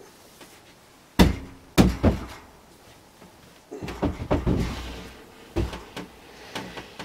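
Heavy foam-filled rudder knocking against the board sides of a homemade hot box as it is lowered in: two sharp thuds about a second in, then a run of bumps and scraping around four to five seconds, and one more knock near six seconds.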